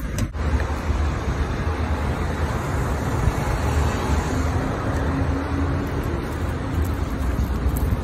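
City street traffic noise: a steady rumble of passing cars and buses.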